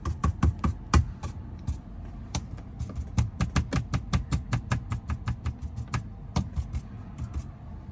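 Tesla Model 3/Y dashboard wooden trim rattling as the car drives: rapid, irregular clicks, several a second, over a steady low road rumble. The rattle is the sign of loose trim against its clips.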